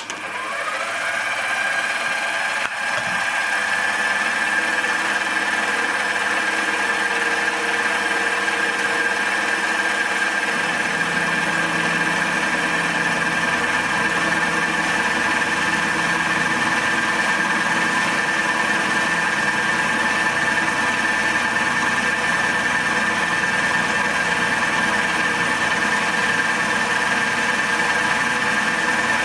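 Milling machine spindle starting and running up to speed, then running with a steady whine while a 16 mm end mill squares the edge of an aluminium plate; a deeper rumble joins about ten seconds in.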